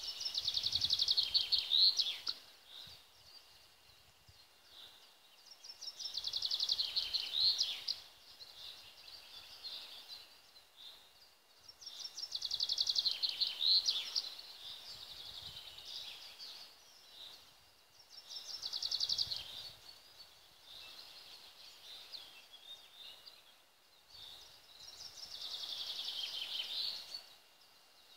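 A songbird singing the same short song over and over, five times about six seconds apart: each song is a quick, high trill lasting about two seconds that ends in a brief falling flourish.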